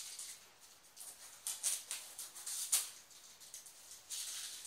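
Scratchy rustling and scraping from hands handling a flat-screen TV on its stand, in a string of short bursts with the sharpest scrape a little before the middle.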